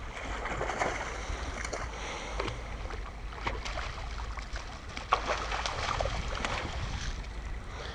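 Water splashing and sloshing at the surface beside a small boat, in a string of short irregular splashes over a steady low rumble.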